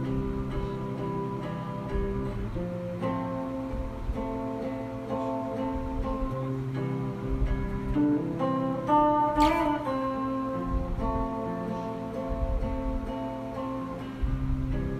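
Acoustic guitar playing chords, with notes changing every second or so. A short, sharp sound comes about halfway through.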